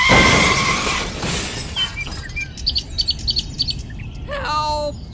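A loud noisy crash as the toy tractor and its loaded trolley tip over, fading out over a second or so, followed by a few quick high bird chirps and then a short wavering vocal cry near the end.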